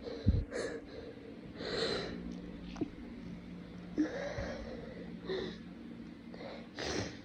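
A person with a congested, runny nose sniffling, about five wet, snotty sniffs and breaths at irregular intervals. A short low thump comes just after the start.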